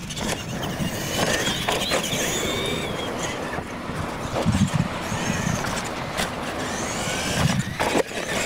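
Electric motors of radio-controlled monster trucks racing, a high whine that rises and falls with the throttle. A few sharp knocks come as the trucks land off the jumps and hit the course.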